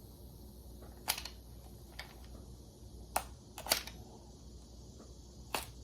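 A few short, sharp clicks and snaps from handling trading cards and their packaging, two of them in quick succession just past the middle.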